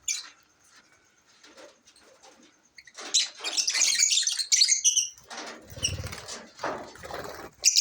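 Pet birds flapping their wings in bursts after a quiet start, with a couple of short high chirps partway through.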